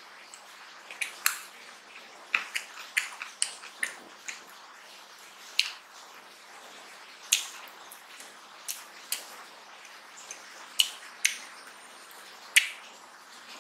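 Close-miked eating by hand of mutton curry and rice: irregular sharp, wet smacks and clicks of chewing and of fingers working the saucy food, some clustered close together and a few much louder.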